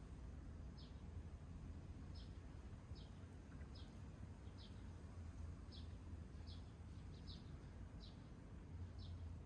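A bird chirping faintly, short high notes that dip slightly in pitch, repeated about once a second over a steady low rumble.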